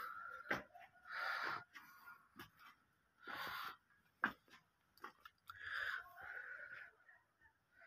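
Aseel chicken giving short raspy calls, four or five of them about half a second each, with a few light sharp clicks in between.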